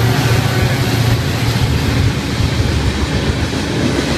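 FEC GE ES44C4 diesel-electric locomotives passing close by, a loud steady engine rumble mixed with wheel and rail noise, easing slightly about halfway through.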